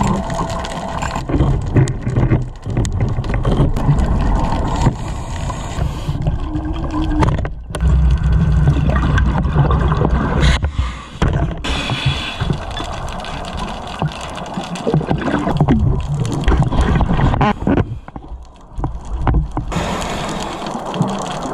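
Scuba diver's regulator exhaust bubbles gurgling and rumbling underwater, in long runs with short breaks.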